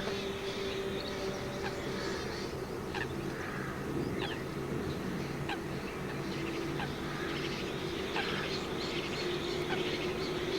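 Eurasian coots calling, with short, sharp calls scattered throughout, over a steady low hum.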